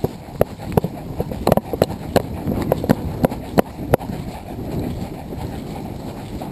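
Running footsteps on a dry forest floor, about three sharp footfalls a second for the first four seconds, then a steady rush of noise from movement.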